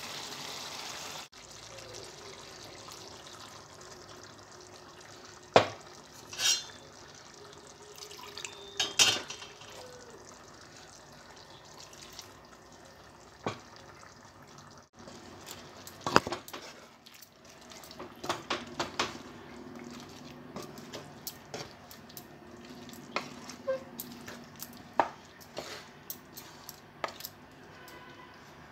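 Chicken curry cooking in a wet gravy in a non-stick pan, with a wooden spatula stirring and knocking against the pan at irregular moments, more often in the last ten seconds.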